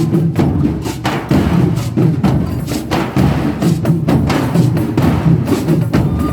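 Drums being played: a dense run of sharp strikes, several a second, with a deep, full body.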